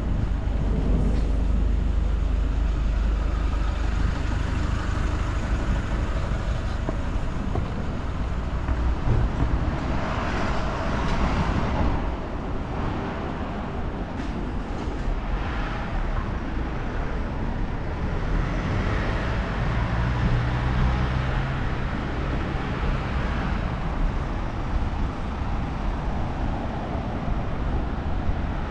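Road traffic on a city street: a steady low rumble with vehicles swelling up and passing by a few times, and a deep engine hum about two-thirds of the way through.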